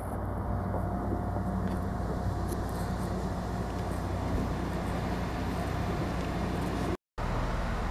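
Steady low hum of a JR East HB-E300 series hybrid railcar standing at a station platform with its machinery running, cut briefly by a short dropout near the end.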